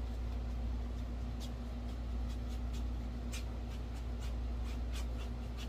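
Paintbrush working paint across a stretched canvas: faint, brief swishes several times over, over a steady low hum.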